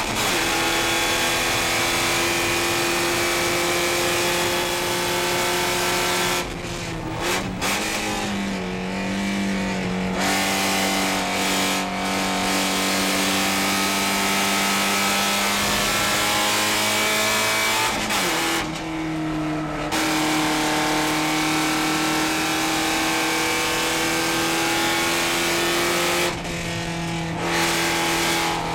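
Porsche 944 Spec race car's four-cylinder engine, heard from inside the cockpit, running hard at high revs under racing load. Its note drops away and changes pitch briefly about a quarter of the way in, about two-thirds in, and near the end, as the driver lifts off and shifts gears.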